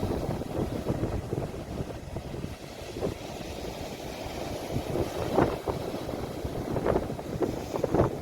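Sea waves recorded on a phone, heard as a steady low rush with wind rumbling on the microphone, and a few brief louder splashes in the second half.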